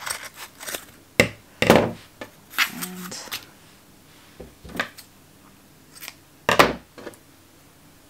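Scissors snipping through a thick bundle of wool yarn wrapped around a strip of cardboard, several short cuts in the first three seconds, followed by two sharper handling noises about five and six and a half seconds in.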